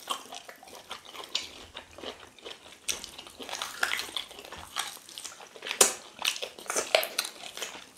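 Close-up mouth sounds of two people biting and chewing chicken with potato fufu and ogbono soup: a steady run of small wet clicks and smacks, the loudest a little before six seconds in.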